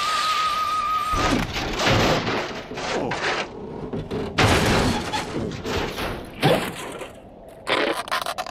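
Cartoon sound effects: a wavering whistle-like tone for about the first second, then a fast, irregular run of noisy rushes and thuds.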